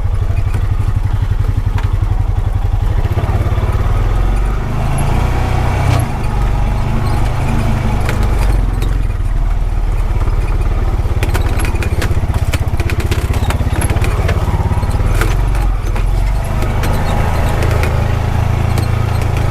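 Honda Pioneer 520 side-by-side's single-cylinder engine running steadily while driving over a rough dirt road, with scattered clicks and rattles from the body and bed.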